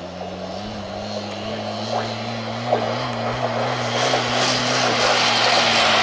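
Engine drone at a steady pitch, growing louder: a greyhound track's mechanical lure drive pulling the hare past the starting boxes to set off the race. A rushing noise builds over the last two seconds.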